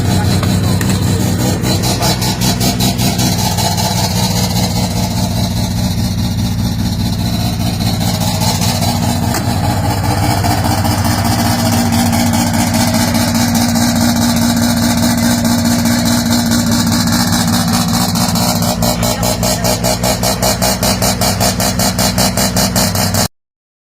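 Mazda RX-7's rotary engine idling with a steady, choppy pulsing exhaust note. It stops abruptly near the end.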